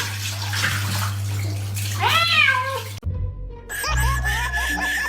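A cat meows once about two seconds in, a call that rises and falls, over a steady low hum. It cuts off abruptly about three seconds in, and background music starts shortly after.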